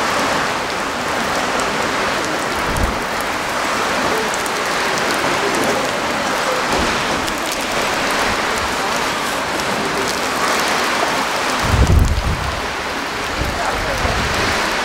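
Heavy rain pouring onto flooded pavement and puddles, a steady hiss, with a brief low rumble about twelve seconds in.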